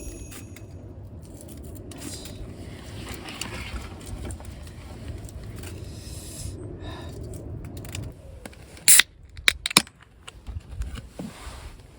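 Scraping and rustling of things being handled, then a few sharp clicks or knocks about three-quarters of the way through.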